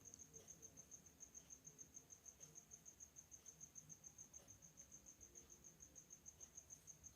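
Faint, steady high-pitched insect chirping, about six chirps a second, typical of a cricket.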